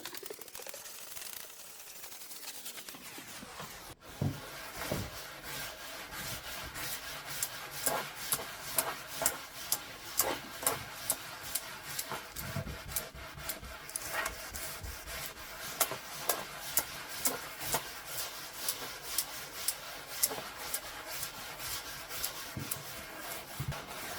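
Repeated rubbing and scraping strokes on a wooden surface, roughly two a second, starting after a cut about four seconds in.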